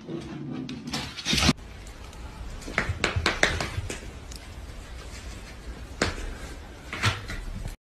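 Scattered short knocks and scrapes from a dog's paws striking and scrabbling against a cabinet front as it jumps up again and again.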